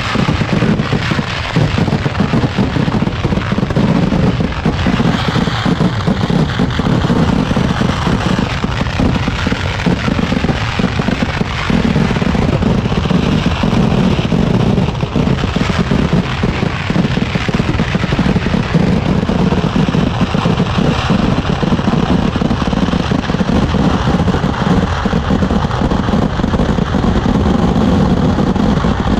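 Kerala temple-festival fireworks (vedikkettu) going off in a rapid, unbroken barrage, the blasts running together into a dense continuous crackle and boom.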